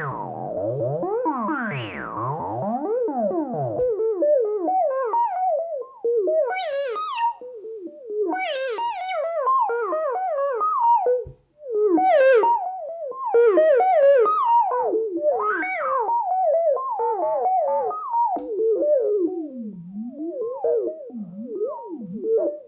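Behringer Crave semi-modular analog synthesizer playing a sequenced line, its tone warbled by LFO modulation. At first the pitch sweeps up and down in slow waves. Then comes a quick run of notes that each slide downward, brightening sharply twice, with a brief drop-out about halfway through.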